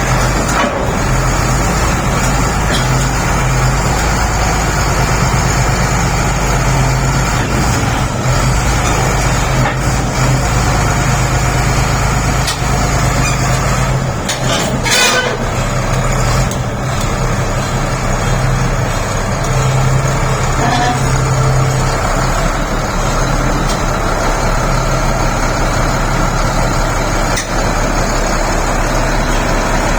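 DH17 bulldozer's diesel engine running with a steady low drone. The drone shifts in pitch about halfway through, where a brief sharp higher-pitched sound also cuts in.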